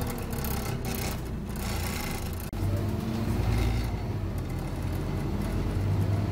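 Scania OmniCity double-decker bus on the move, heard from inside the passenger saloon: a steady low engine drone over road and tyre noise. The sound drops out for an instant about two and a half seconds in, and the low rumble comes back a little louder.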